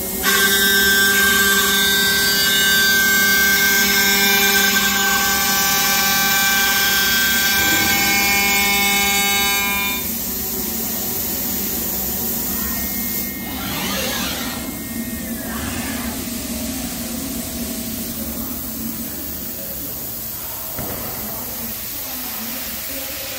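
Elumatec SBZ 150 CNC profile machining centre's spindle running at high speed with a loud, steady whine of several tones while machining an aluminium profile; the whine cuts off about ten seconds in. The machine then runs on more quietly, with a brief rising and falling tone a few seconds later.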